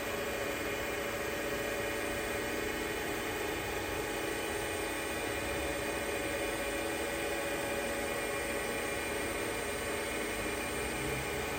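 2004 Trak DPMV5 CNC bed mill running, its spindle turning at about 3000 RPM while the axes move together in a helical interpolation. It is a steady, quiet whir with several steady tones.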